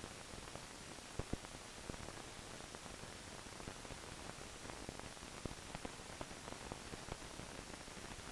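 Steady hiss with scattered clicks and pops, the two loudest a little over a second in: the surface noise of a blank film soundtrack.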